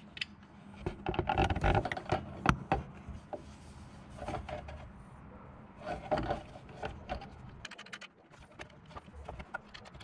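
Hands fitting a 3D-printed plastic air-intake duct behind a car's grille: irregular rustling, scraping and clicking of plastic against plastic and the mounting studs. The handling is busiest about a second in, with a sharp click about two and a half seconds in, and picks up again around six seconds.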